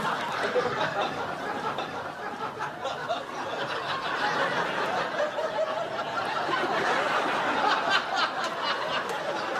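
A group of people laughing and chuckling together, many voices overlapping without a break.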